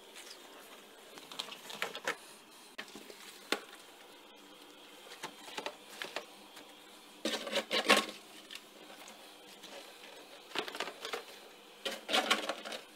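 Hands squeezing and handling wet, rinsed napa cabbage pieces: scattered squelching and crinkling, in short clusters, the loudest a little past the middle.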